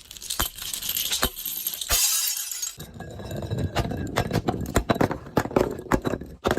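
A glass bottle being broken and crushed: a few sharp cracks, a burst of tinkling shatter about two seconds in, then a long run of dense crunching as the shards are ground.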